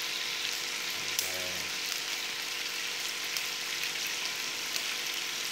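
Chicken satay skewers sizzling steadily on a hot nonstick (teflon) grill pan over a gas burner, with scattered small crackles and pops.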